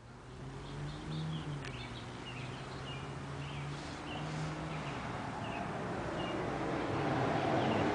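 Outdoor ambience: a small bird chirping in short, repeated calls, over a steady low engine hum that stops about five seconds in. A broad rush of passing-vehicle noise grows louder toward the end.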